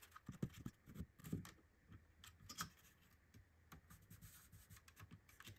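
Faint handling noise: light clicks and rubbing of lightweight 3D-printed plastic fuselage sections being slid apart along carbon rods.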